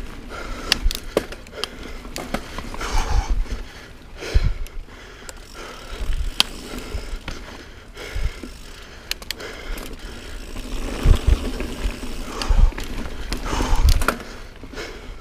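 Niner Jet 9 RDO full-suspension mountain bike riding dirt singletrack: steady tyre noise on the trail with frequent sharp clicks and rattles from the bike over bumps, and irregular low rumbling thumps, strongest near the end.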